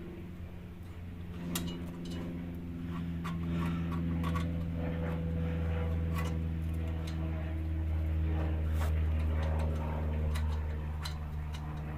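A steady low mechanical hum, like a motor running, that swells in the middle and eases off near the end, with scattered light clicks and taps throughout.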